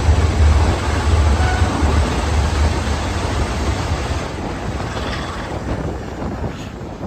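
British Rail class 45 'Peak' diesel locomotive, its Sulzer twelve-cylinder engine working under power: a loud deep rumble with heavy rushing noise that weakens and dies away steadily through the second half.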